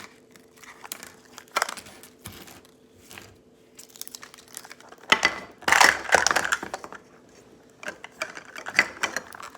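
Thin plastic wrapping crinkling and tearing as tiny toy miniatures are unwrapped by hand, with small plastic clicks and taps. A louder stretch of rustling comes about five seconds in and lasts a second or so.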